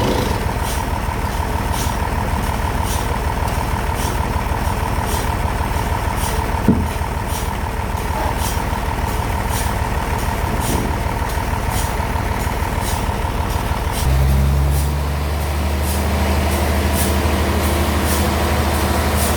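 Sawmill bandsaw machinery running steadily, with a constant tone and a regular ticking. About fourteen seconds in, the tone stops and a deeper, steadier hum takes over.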